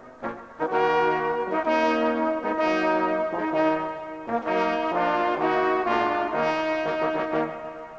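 Brass ensemble playing: a few short notes, then full held chords that change every second or so, with a brief break between phrases.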